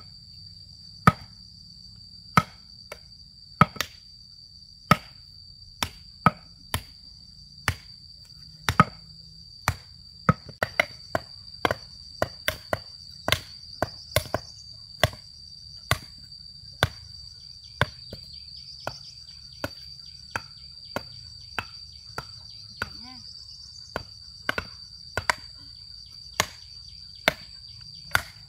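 A hand tool striking repeatedly in chopping strokes, a little more than one a second and sometimes in quick pairs, over a steady high drone of insects.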